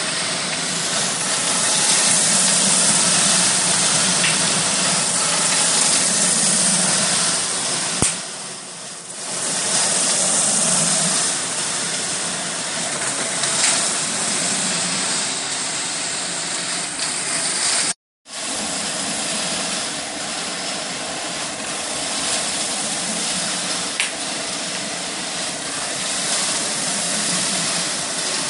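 Homemade drum coffee roaster running: a steady hiss from the gas burner under the rotating stainless drum, mixed with the beans tumbling inside as a car power-window motor turns it. There are a few sharp clicks, and the sound cuts out briefly once just past the middle.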